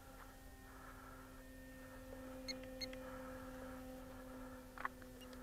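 Faint steady electrical hum, with a few light clicks about halfway through and again near the end.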